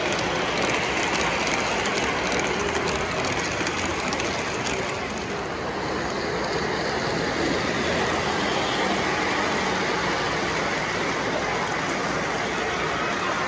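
O-gauge model trains running on three-rail track: a steady rumble of wheels and motors.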